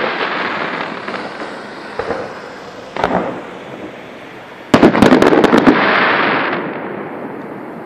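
Fireworks: a rush of sparks from a ground fountain fading out, single bangs about two and three seconds in, then a quick volley of sharp shell bursts about five seconds in, followed by a loud rush of noise that dies away.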